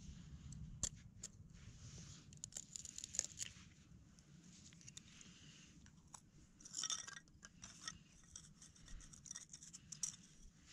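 A knife shaving and scraping along a stick of wood in short scratchy strokes, with sharp clicks; about seven seconds in, a brief clatter as dry kindling sticks are handled.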